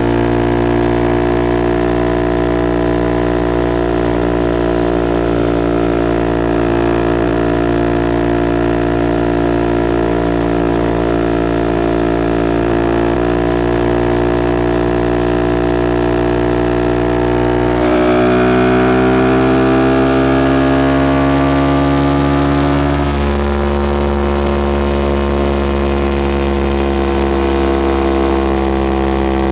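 Suzuki Gixxer SF 250's single-cylinder engine running through a Yoshimura R11 exhaust while riding, holding steady revs for most of the time. About two-thirds of the way in, the pitch climbs for several seconds as it accelerates, then drops to a new steady note, as after a gear change.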